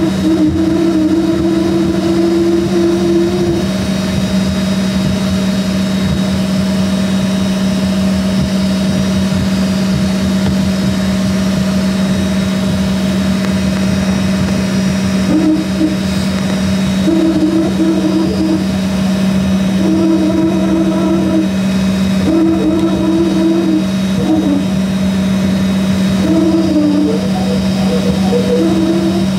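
Cabin noise of an Embraer ERJ-135 taxiing: its rear-mounted Rolls-Royce AE3007 turbofans running at low power as a steady hum, with a second, higher hum that comes and goes in short stretches.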